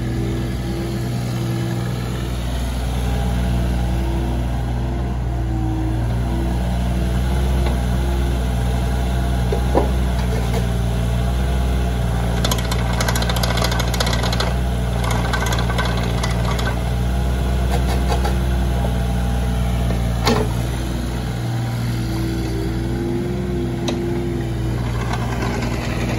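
Volvo EC18D mini excavator's diesel engine running steadily while the machine is worked, with a note that comes and goes as the hydraulics take load. Two sharp knocks, about ten and twenty seconds in, and a stretch of rattling in the middle.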